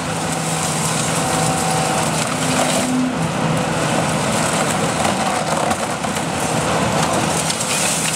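Hitachi Zaxis 300 LCN excavator's diesel engine running steadily under a continuous hum, its pitch shifting slightly now and then.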